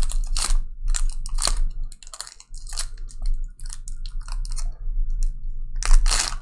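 Wrapper of a basketball trading card pack crinkling and tearing as it is opened and the cards are pulled out, in irregular crackles with a short lull about two seconds in.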